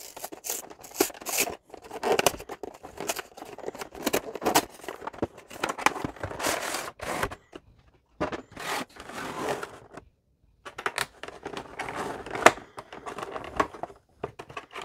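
Cardboard packaging being pried open, then a clear plastic insert tray being lifted and handled. Irregular scraping, tearing and crinkling runs throughout, with sharp clicks and a few short pauses.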